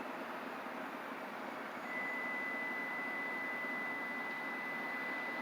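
Steady rushing noise of a passing vehicle, with a thin, steady high-pitched tone that comes in about two seconds in and holds.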